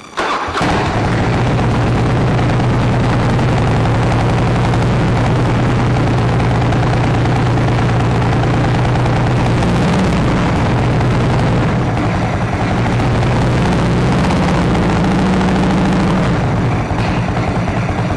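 1999 Harley-Davidson V-twin engine starting up and then running steadily, its pitch lifting a little a couple of times, on its first run after a spring oil change and fluid top-up.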